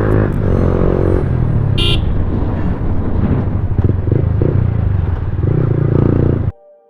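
Yamaha R15M's 155 cc single-cylinder engine running loud through an aftermarket Akrapovic exhaust while riding, its pitch rising and falling with the throttle. A vehicle horn toots briefly about two seconds in, and the engine sound cuts off suddenly near the end.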